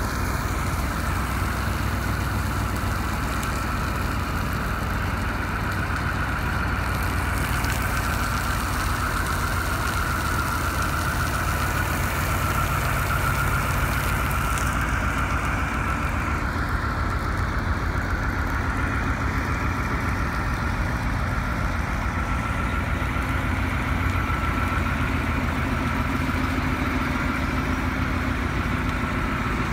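Ford C-series E-One fire truck's diesel engine running steadily while it drives the pump. A hiss of water spraying from the ladder nozzle is heard in the first half and dies away about halfway through.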